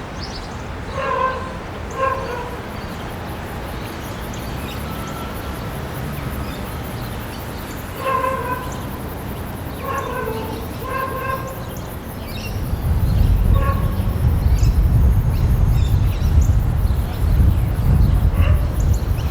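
Dog barking in short groups of two or three, with small birds chirping, in a residential neighbourhood. About two-thirds of the way through, a loud low rumble comes in and continues.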